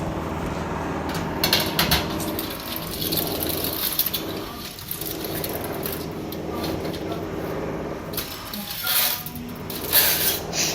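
A steady mechanical hum runs under knocks and clatter of cookware being handled, a few strikes about a second and a half in and more near the end.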